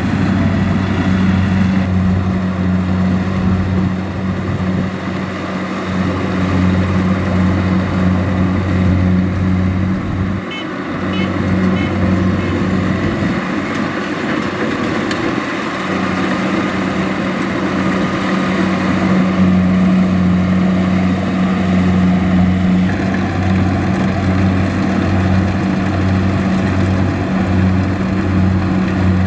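Tracked rice combine harvester running steadily as it cuts rice: a continuous low engine drone mixed with the rattle of its cutting and threshing machinery.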